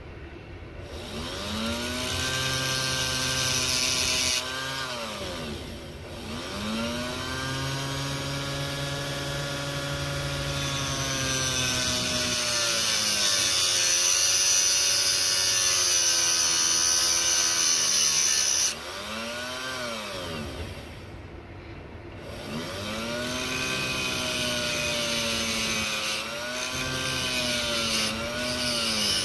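Dremel rotary tool running in several bursts, grinding away part of an airsoft gearbox to make room for a control-unit circuit board; the motor's pitch sags each time it bites into the material and picks up again as it eases off, with a high grinding hiss over it.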